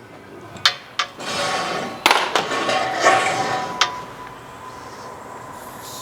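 Tools working the last bolt on a car's rear suspension: sharp metallic clicks and a rattling stretch of about two and a half seconds from about a second in, then quieter.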